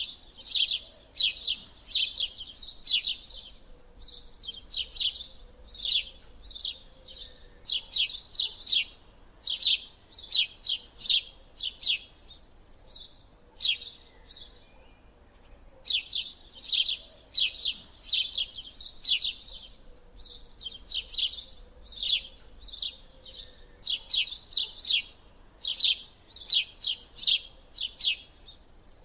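Small birds chirping: quick high-pitched chirps in tight clusters about once a second, with a short pause near the middle.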